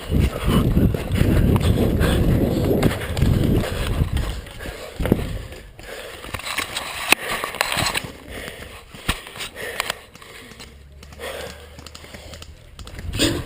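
Footsteps and gear rustling of an airsoft player moving on foot, with heavy rumble on the camera microphone for the first few seconds. A few sharp snaps follow later on.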